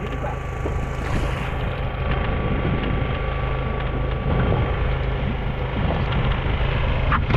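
A boat's engine hums steadily under wind and sea noise, with water splashing as a fish is hauled up against the hull on a handline.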